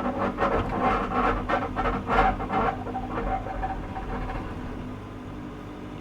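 Excavator engine running under load, with a rapid series of scraping knocks from the digging bucket, about four a second, that stop about two and a half seconds in, leaving the engine running more quietly.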